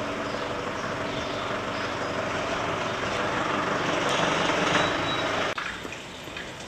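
A motor vehicle's engine running close by in the street, with a steady hum under a wash of noise, growing louder and then cutting off suddenly about five and a half seconds in.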